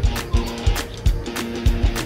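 Music with a steady drum beat, about three beats a second, over sustained melodic notes.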